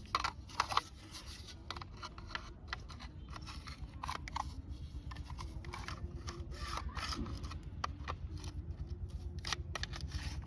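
Plastic toy-gun parts being handled and pressed together by hand: scattered light clicks, small knocks and rubbing, over a low steady hum.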